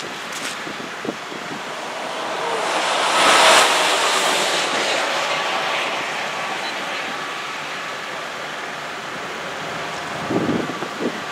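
Wind rushing over the microphone, swelling to a gust that peaks about three and a half seconds in and then eases. A few low knocks come near the end.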